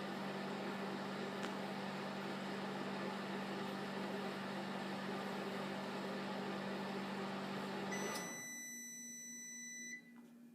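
Sharp Carousel over-the-range microwave oven running with a steady hum. About eight seconds in it shuts off, and a tone sounds for about two seconds, the end-of-cycle signal.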